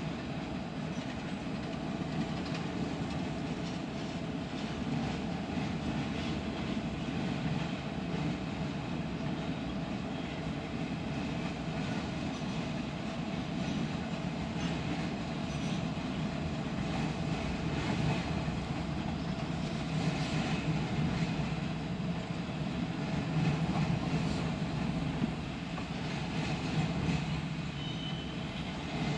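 Freight train of tank cars and covered hoppers rolling past: a steady rumble of steel wheels on rail, with scattered clicks as the wheels cross rail joints.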